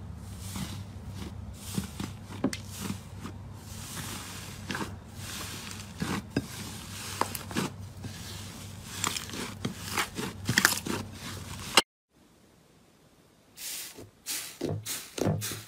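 Hands pressing, stretching and kneading thick slime: irregular squishing with many sharp little clicks over a low steady hum. It cuts out briefly about twelve seconds in, then fingertips pressing into another slime squish again.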